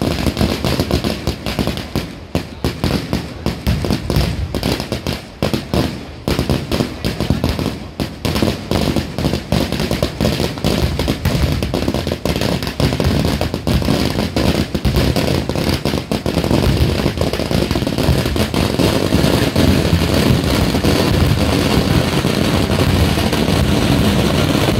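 Firecrackers bursting in a rapid, ragged crackle of bangs. From about two-thirds of the way through, the bangs merge into a denser, steadier, louder crackle.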